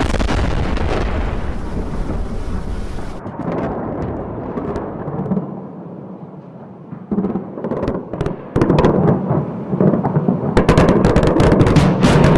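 Explosions rumbling heavily across a city. From about seven seconds in come sharp bangs and cracks, which come thick and fast near the end.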